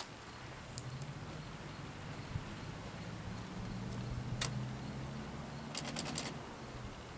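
Olympia SM9 manual typewriter mechanism clicking sparsely: a sharp single click about four and a half seconds in, then a quick run of four or five clicks around six seconds, over a low steady hum.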